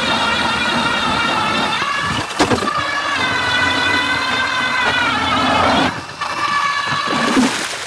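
ION X40 electric ice auger's motor whining steadily as the bit cuts through the last inches of ice and goes through smoothly without catching, with brief dips about two and six seconds in. The motor stops shortly before the end.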